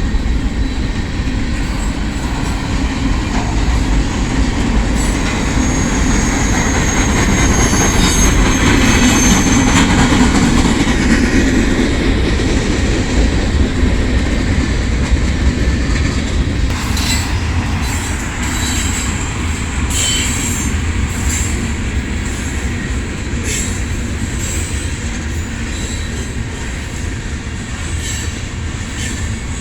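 Freight cars of a Union Pacific manifest train rolling past: a steady rumble of steel wheels on rail, with a thin high wheel squeal in the first third. Clicks over rail joints come through more in the second half as the sound slowly eases.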